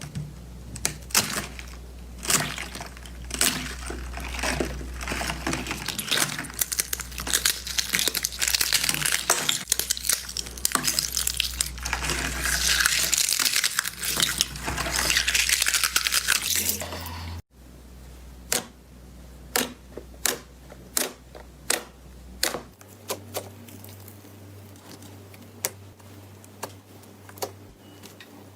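Slime being squeezed and pressed by hand, giving a dense crackling full of sharp pops. After a sudden cut a little past halfway, it turns to separate clicking pops about once a second.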